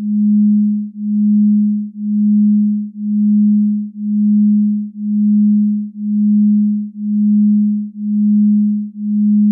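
A low, pure electronic tone that swells and fades in an even pulse about once a second.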